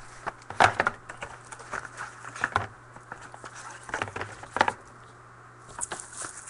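Trading card packs and their cardboard box being handled and opened: irregular crinkling and crackling of wrappers with a few sharper knocks, over a steady low hum.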